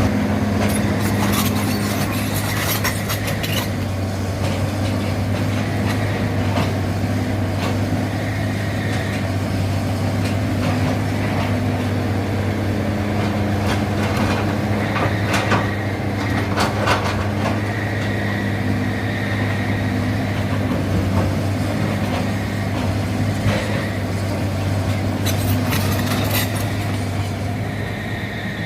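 Excavator's diesel engine running steadily under work. Several clusters of knocks and clatter come through it, a little after the start, about halfway through and near the end.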